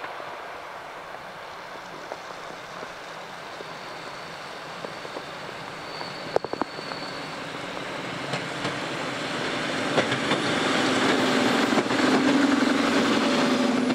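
Passenger train approaching and running past along a station platform. Its noise grows steadily louder as it comes close, with scattered wheel clicks and a low hum that gets stronger as the carriages come alongside near the end.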